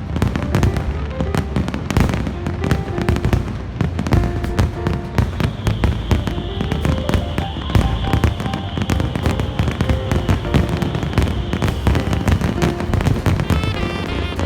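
Fireworks going off in quick succession, many bangs and crackles, over music playing.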